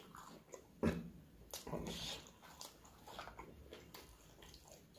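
Close-miked mouth sounds of eating with the hands: soft chewing and lip smacks, with one sharper smack or click about a second in.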